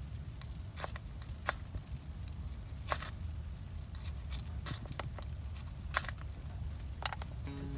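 A ferrocerium fire-starter rod struck with its scraper to throw sparks onto kindling: seven or eight short, sharp rasps at irregular intervals, over a steady low rumble of wind on the microphone. Acoustic guitar music comes in near the end.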